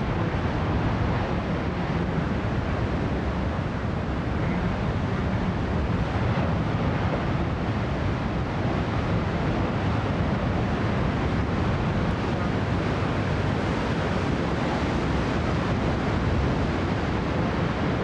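Heavy ocean surf breaking without pause, with wind rumbling on the microphone.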